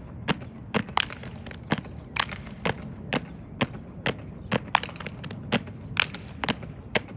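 Drill team marching in step on a hard court: shoe heels striking together about twice a second in a steady cadence, some strikes landing slightly out of unison.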